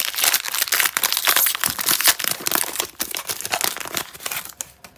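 Foil wrapper of a Pokémon booster pack crinkling and crackling as it is handled and the cards are drawn out of it. The rustle dies away about four and a half seconds in.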